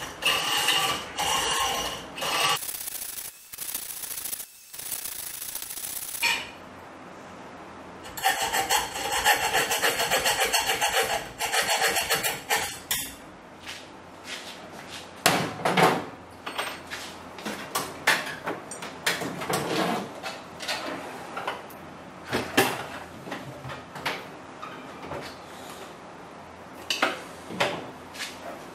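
Hand hacksaw sawing, a rasping back-and-forth stroke after stroke, in a short bout at the start and a longer one about eight to thirteen seconds in. Scattered clicks and knocks follow as the saw and work are handled.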